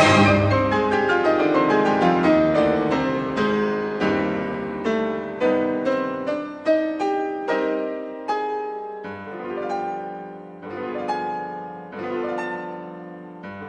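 Background piano music: struck notes and chords left to ring, sparser and softer toward the end.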